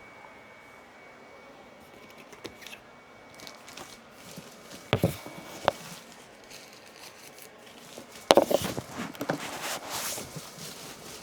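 Unboxing packaging being handled: two sharp knocks about halfway through, then a couple of seconds of loud rustling and crinkling of packing material with small clicks.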